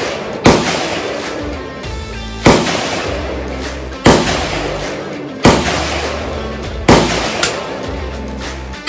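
.22 rimfire rifle shots, six of them about every second and a half, each a sharp crack that dies away over about a second, with a smaller crack near the end. Background music runs underneath.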